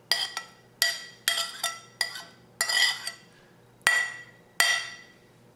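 A metal spoon knocking and scraping grated apple and plum off a ceramic plate into a stainless steel bowl: a string of sharp ringing clinks, roughly one a second, with a longer scrape about three seconds in.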